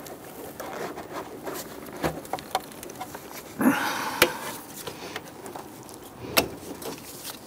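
A rubber upper radiator hose and its spring clamp being worked loose by hand and with a screwdriver: scattered clicks and rubbing, a short scraping rustle about three and a half seconds in, and sharp clicks about four and six seconds in.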